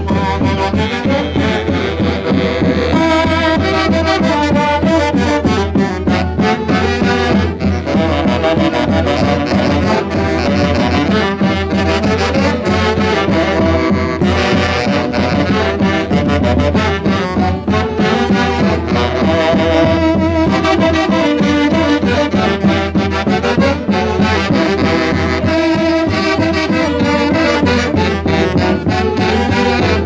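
Traditional Andean Santiago dance music from a band with brass instruments, playing with a steady beat.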